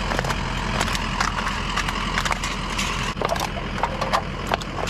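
Irregular clicks and light clattering of small scrap items (wires and old electronics) being handled and sorted, over a steady low hum.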